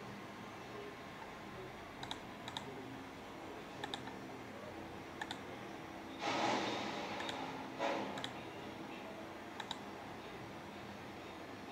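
Computer mouse clicking, a handful of short double clicks spread out, with two brief bursts of noise about six and eight seconds in, the first the loudest.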